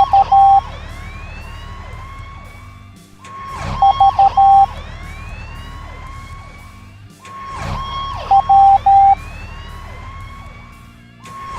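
Morse code beeps at one steady pitch, tapping out the letters U, V and W in turn, about four seconds apart. Each letter follows a siren-like wailing sound effect with gliding tones.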